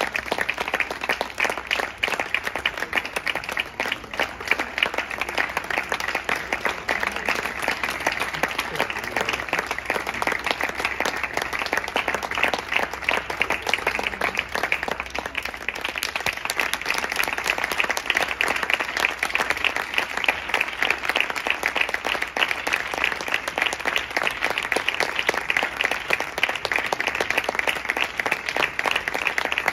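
Audience applauding: dense clapping from many hands at an even level.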